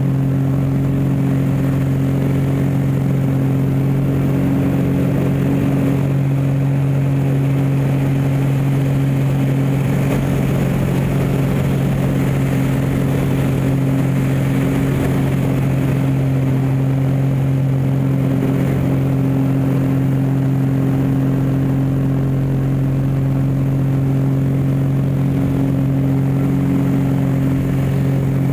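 Aerobatic biplane's piston engine and propeller running at steady high power, heard from inside the cockpit with airflow noise, the drone holding an even pitch and level throughout.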